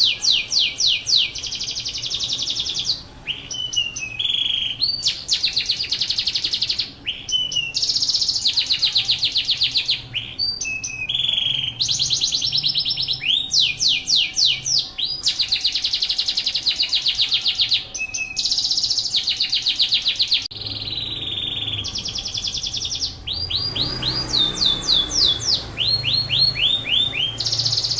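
Yorkshire canary singing a long run of rapid trills: phrases of fast repeated notes sweeping in pitch, each a second or two long, one after another with only brief breaks.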